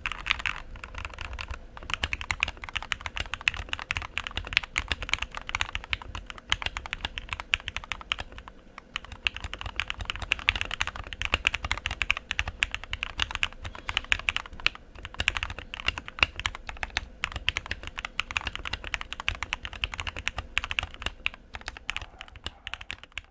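Continuous fast typing on a Rakk Lam Ang Pro mechanical keyboard fitted with lubed and filmed Gateron Milky Black linear switches, dampened with foam, tape and polyfill mods: a steady stream of keystrokes with a brief lull about nine seconds in.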